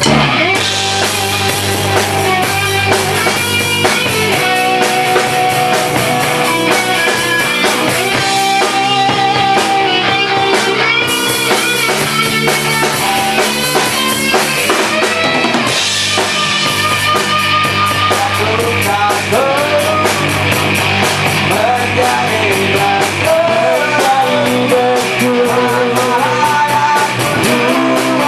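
A rock band playing live: electric guitar, bass guitar and drum kit. They come in together at full volume right at the start and keep playing loudly.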